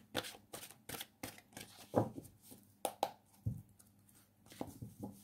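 A deck of tarot cards being shuffled by hand: irregular soft slaps and taps of the cards against each other, with a few duller thumps.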